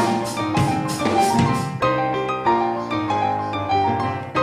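Instrumental backing music: piano chords over a drum-kit beat. The drums drop out about two seconds in, leaving the piano playing on alone.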